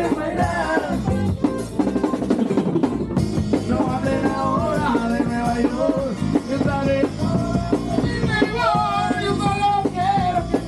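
Live band music: an accordion plays a wavering melody over a drum kit keeping a steady beat.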